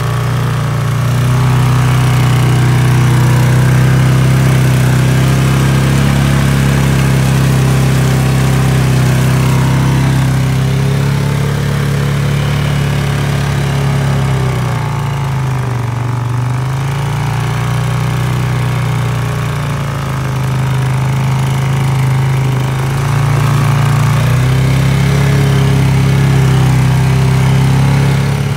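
All-terrain vehicle engine running steadily while being ridden. Its pitch dips about halfway through and picks back up a few seconds before the end.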